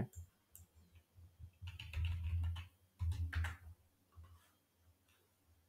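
Typing on a computer keyboard: keys clicking in two short runs, about two and three seconds in.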